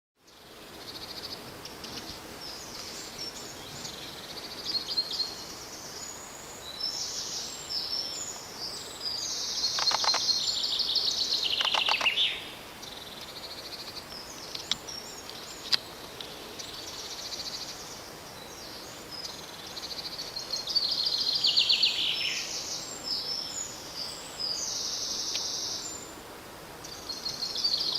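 Songbirds singing outdoors in repeated phrases of one to three seconds, some ending in falling trills, over a steady background hiss.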